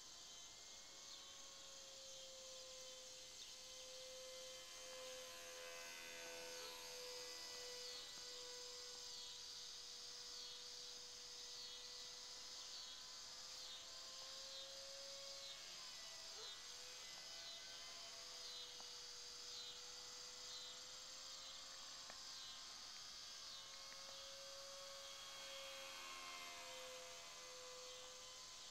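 Faint steady hum of an E-flite Curtiss N9 model biplane's electric motor and propeller in flight, its pitch wavering slightly up and down. Insects chirp in a steady rhythm of about one chirp a second behind it.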